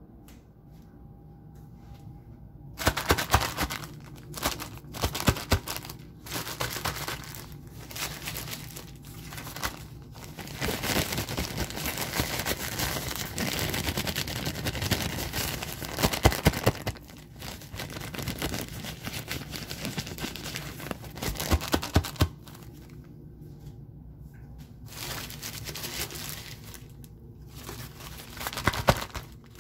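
Plastic-backed adult diaper (ABU Bunnyhopps) crinkling and rustling as it is handled close to the microphone, in irregular bursts with sharp crackles. The crinkling starts about three seconds in and eases briefly a few seconds before the end.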